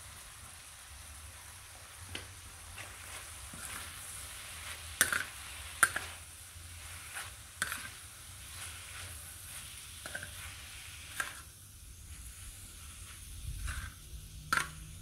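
Chopped sheep liver sizzling in a large steel pan while a metal spatula stirs it, scraping and clinking against the pan now and then. The two loudest clinks come about five and six seconds in.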